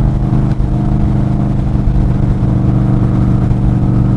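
Indian Scout Sixty's V-twin engine running steadily at cruising speed, with wind buffeting the microphone.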